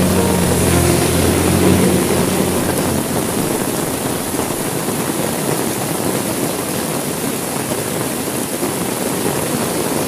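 Heavy rain beating steadily on window glass. A low rumble of thunder dies away over the first few seconds.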